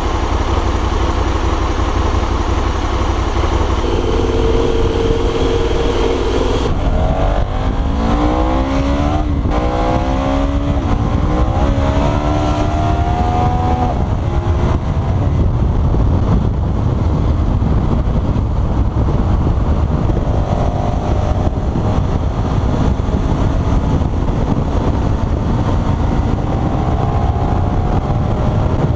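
KTM 1290 Super Adventure S's big V-twin accelerating hard through the gears: after a steady spell, the engine note climbs in a run of rising sweeps from about 7 seconds in, each cut short by a quick-shifter upshift. The bike then runs at highway speed, with heavy wind noise on the microphone under the engine.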